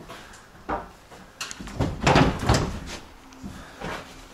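Footsteps and hollow knocks on the wooden floor of an empty curtain-sided semi-trailer, a few single thuds then a louder cluster about two seconds in.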